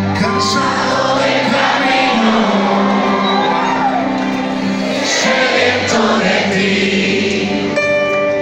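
Live band playing the soft intro of a Christian ballad with held keyboard and guitar chords, while the audience cheers and sings along.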